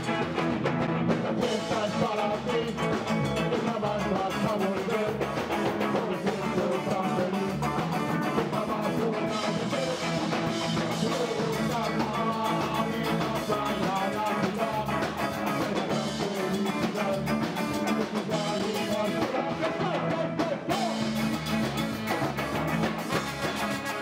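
A ska band playing live: electric guitar, trombone and drum kit, with a singer.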